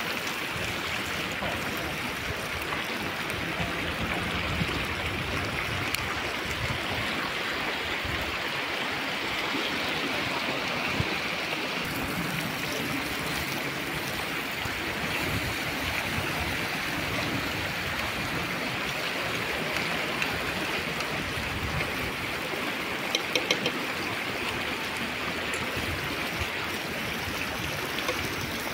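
River water flowing steadily, an even rushing with no break, with a few light clicks about three quarters of the way through.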